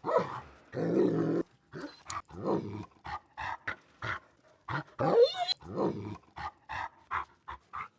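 Dog panting sound effect: quick breathy pants with short throaty vocal noises mixed in, and one rising-then-falling whine-like sound about five seconds in.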